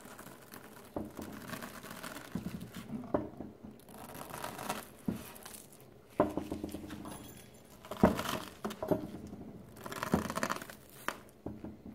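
Plastic mesh pot scrubbers crinkling and crackling as a hot chef's knife is pressed down through them, melting them apart, with a few sharp clicks and knocks along the way.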